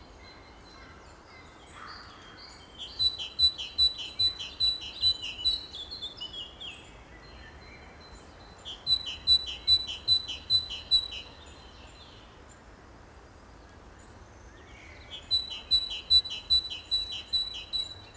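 A songbird singing three phrases of quickly repeated high notes, about three a second, each phrase lasting a few seconds, over a faint steady low rumble of outdoor background.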